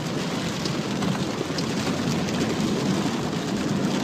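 Steady rushing noise of rain and flash-flood water heard inside a vehicle's cabin as it drives through the flooded road.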